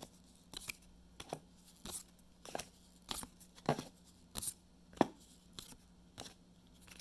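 Yu-Gi-Oh! trading cards being slid off a stack one after another, a short papery scrape about every half second.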